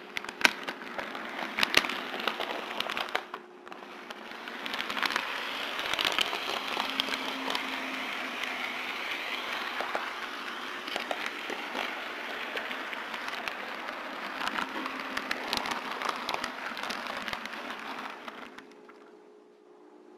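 HO scale model train rolling along the track, heard from a small camera riding on a flatcar: a steady rattle of metal wheels on rail with many sharp clicks. It dips briefly about three seconds in and fades out near the end.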